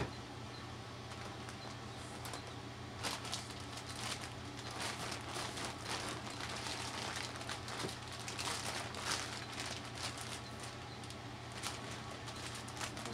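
Clear plastic spawn bag crinkling and rustling in irregular bursts from about three seconds in, as it is handled and wiped down with an alcohol-soaked paper towel, over a steady fan hum.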